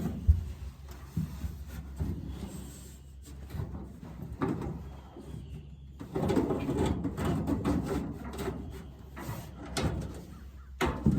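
Knocks, clicks and scraping as a rubber pad is worked under the slide of a metal truck toolbox, with a sharp knock right at the start.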